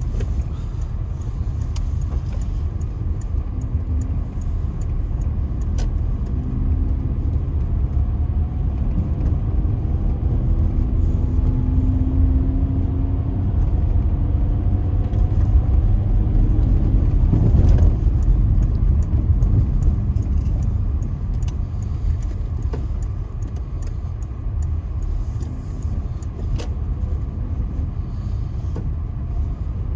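Car driving on a snowy road: steady low road and tyre rumble. Around the middle a faint engine note rises in pitch, followed by a brief louder swell.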